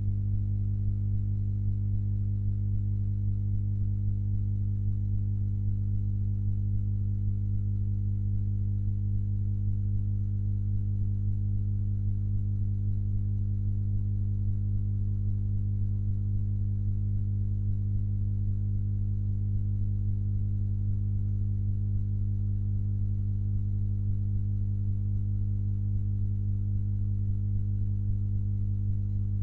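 Steady low electrical hum, one unchanging tone with a few fainter overtones and nothing else rising above it.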